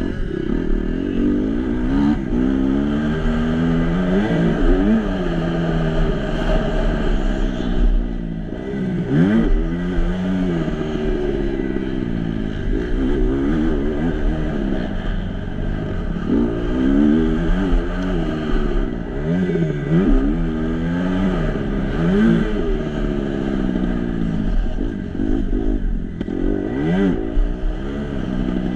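Kawasaki 250 KX-F four-stroke single-cylinder motocross engine heard from on the bike, revving hard and dropping back again and again as the rider accelerates, shifts and rolls off. Its pitch climbs and falls every second or two.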